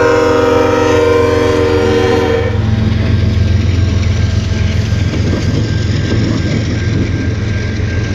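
Freight locomotive air horn blowing a chord that drops slightly in pitch as it passes, cutting off about two and a half seconds in. Then the steady rumble and rattle of autorack freight cars rolling past on the rails.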